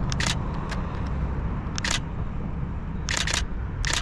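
Camera shutter firing as photos are taken: crisp clicks, a quick pair right at the start, a single shot about two seconds in, a rapid burst of three a little after three seconds, and one more near the end, over a steady low background rumble.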